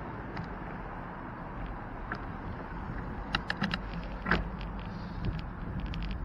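Bicycle in motion: steady road and wind noise, with a quick run of sharp metallic rattles a little past three seconds in and one louder rattle about four seconds in.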